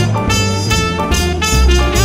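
Jazz background music with horns playing a melody over a bass line.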